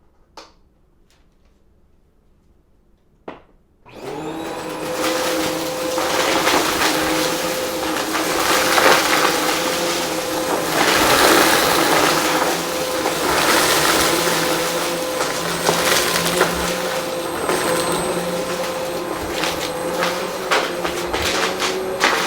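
Two clicks, then a vacuum cleaner switches on about four seconds in and runs steadily, its motor holding a steady whine over the rush of suction.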